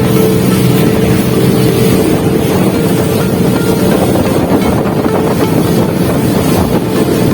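A boat's engine running steadily with a constant low hum, and wind buffeting the microphone.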